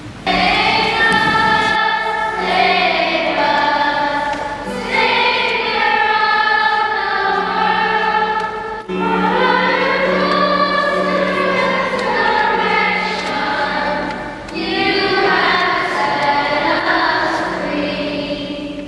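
A choir singing a hymn in sustained phrases, with short breaks between them.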